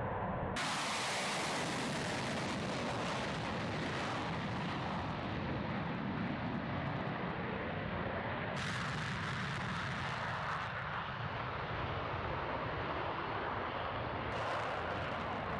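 Su-30SM fighter's twin AL-31FP turbofan engines at takeoff power: a steady, dense jet noise as the aircraft takes off and climbs away, its upper range shifting abruptly a few times.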